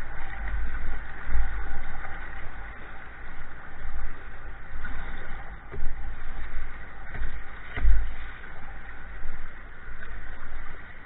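Choppy river rapids rushing around a kayak, with gusts of wind buffeting the microphone in uneven rumbles and a few brief louder splashes, the biggest about eight seconds in.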